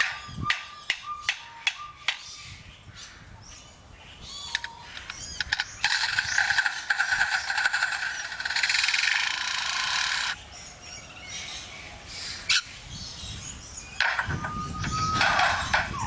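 Lyrebird mimicking construction noises: a run of sharp clicks and short steady beeps, then a harsh buzz like a power tool lasting about four seconds, a lone sharp click, and a final louder burst with a steady tone.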